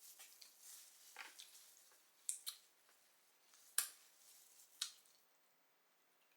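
Quiet wet squishing with a few sharp clicks and cracks: seafood-boil shells being cracked and peeled by hand in sauce.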